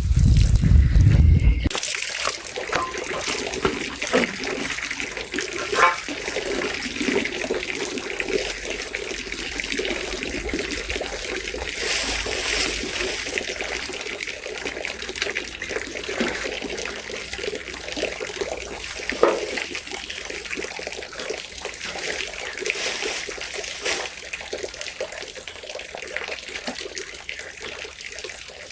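Water running and trickling steadily, with a few small knocks. A loud low rumble sounds for about the first two seconds.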